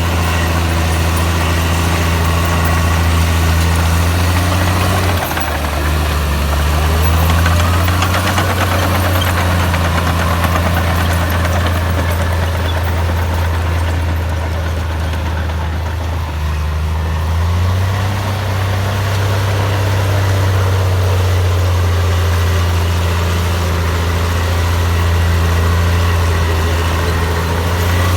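Komatsu bulldozer's heavy diesel engine running steadily while working dirt. Its low drone drops in pitch about five seconds in and rises back a little past halfway.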